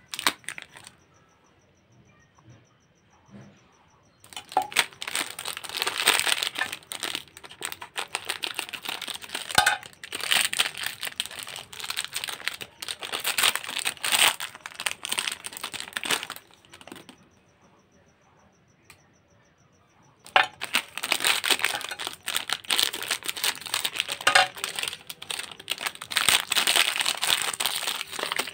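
Foil-lined plastic Chupa Chups lollipop wrappers crinkling as they are handled and opened, with two quiet pauses, about one to four seconds in and again from about sixteen to twenty seconds in.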